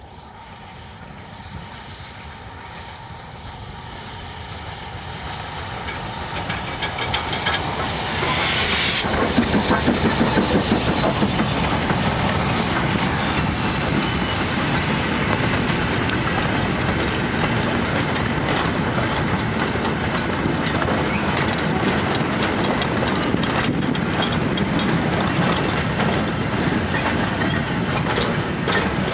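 Steam locomotive hauling a goods train, growing steadily louder as it approaches, with a burst of steam hiss as it passes about eight seconds in. A long line of freight wagons then rolls past, their wheels clickety-clacking over the rail joints.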